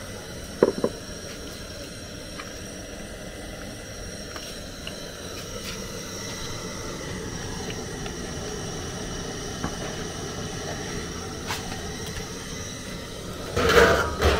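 Steady rumbling noise of the burner under a large aluminium cooking pot. There are a couple of sharp knocks from a handled plastic bowl about a second in, and a louder clatter near the end.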